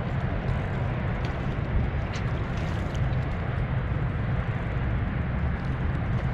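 Steady low rumble of wind buffeting the microphone, unchanging throughout.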